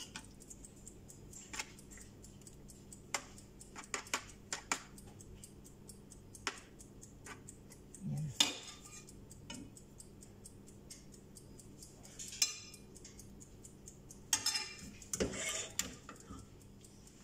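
Metal spoons clinking and scraping against glass baking dishes and a foil tray as lasagna fillings are spooned out, in scattered separate clinks, with a couple of longer scrapes near the end.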